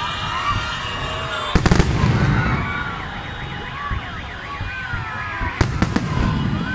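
Fireworks going off: a quick cluster of sharp bangs about a second and a half in and another near the end. Between them, overlapping high wavering tones and whistles keep sounding.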